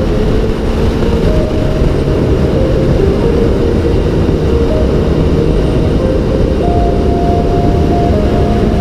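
Sport motorcycle ridden at road speed, heard from a helmet-mounted camera: steady wind rush over the camera with the engine running underneath.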